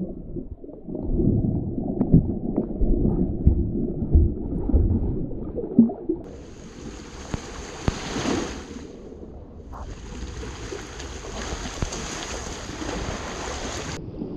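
Seawater sloshing and gurgling around the camera with wind buffeting the microphone. About six seconds in a steady hiss of surf and wind takes over; it breaks off briefly near the middle and stops abruptly near the end.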